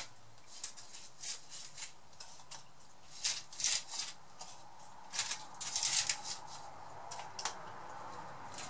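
Pastry brush spreading egg wash over sausage rolls: soft, irregular brushing strokes, some single and some in quick runs.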